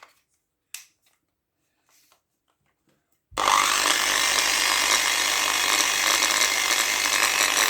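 A couple of faint clicks, then the Festool RO1E dual-mode sander switches on suddenly about three seconds in and runs steadily at full speed.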